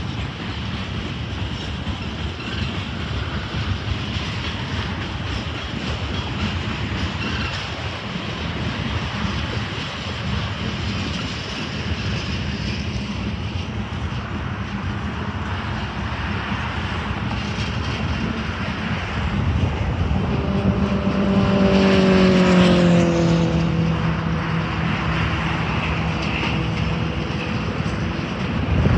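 Freight train cars rolling past: a steady rumble and rush of wheels on rail. About twenty seconds in, a passing motor's drone, the loudest sound, drops in pitch and then holds for a few seconds.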